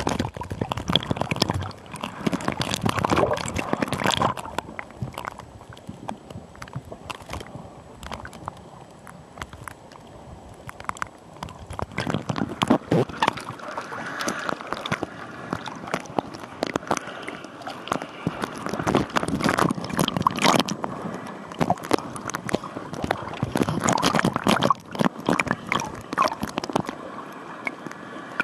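Water bubbling and gurgling in loud bursts every several seconds, with quieter stretches between.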